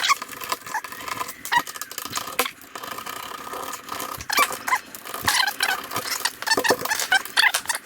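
Old door lock hardware being taken off the door: irregular metallic clicks, taps and rattles, with short squeaks coming more often in the second half.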